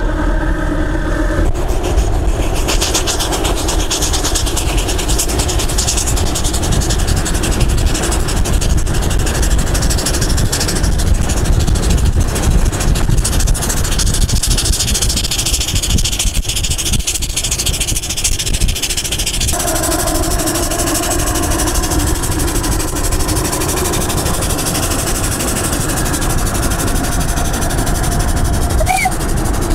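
Homemade steam motorcycle's steam engine running under way, giving off a continuous hiss of venting steam over a low rumble of wind and road noise. About two-thirds through, the hiss eases and a steadier hum comes in.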